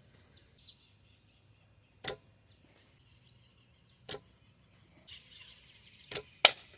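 Sharp chopping blows about two seconds apart, the last two close together near the end, as a hatchet or axe splits firewood.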